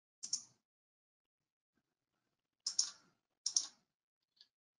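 Three short, sharp clicks, one near the start and two close together a little after halfway, as of a computer mouse or keys clicking through presentation slides.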